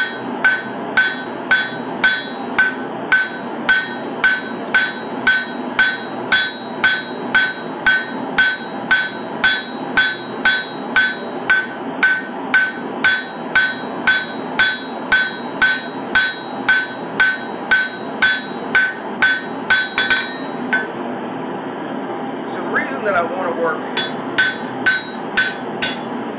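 Hand hammer striking a red-hot katana blade on a steel anvil at a steady two blows or so a second, each blow ringing, as the edge bevel is forged. The blows stop for a couple of seconds near the end, then resume as lighter, quicker strokes as the blade cools.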